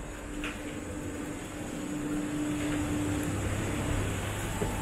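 Steady hum and air rush of the ventilation and ground equipment around an airliner's boarding door and jet bridge. A low droning tone swells in the middle and fades out about four seconds in.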